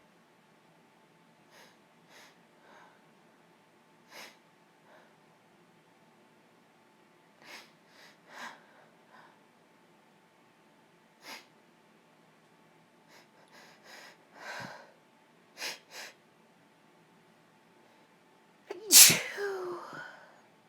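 A sick woman sneezing once, loudly, near the end. Before it come a series of short, soft sniffs and catching breaths as the sneeze builds.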